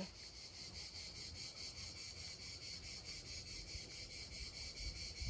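Faint insects chirping in a fast, even pulse, high in pitch, with a soft low rumble of wind underneath.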